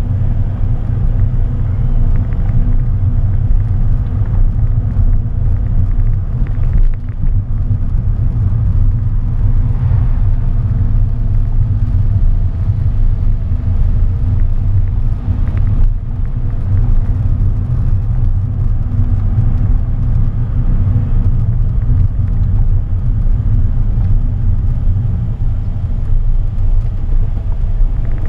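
A car being driven on the road: a steady low rumble of engine and tyre noise, with a faint hum above it.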